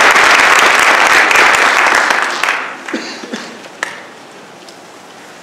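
Audience applause that dies away about two and a half seconds in, followed by a few scattered last claps and then the quiet of the hall.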